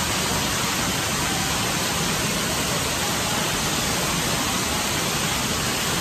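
Steady rush of water from a splash pool's sprays and fountains, an even hiss with no breaks.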